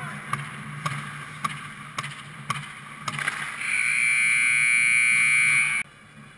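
Ice rink's game horn sounds one steady, high buzz for about two seconds, starting a little past halfway and cutting off abruptly; it marks the end of regulation play. Before it come scattered sharp knocks of sticks and puck on the ice over a low steady hum.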